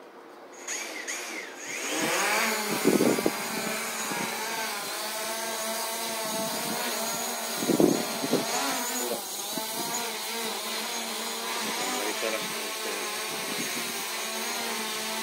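Small folding quadcopter drone's motors and propellers spinning up with a rising whine about a second in, settling into a steady, high buzz of several tones. The pitch wavers about halfway through as the drone lifts off and climbs to a hover, with two brief louder bursts about three and eight seconds in.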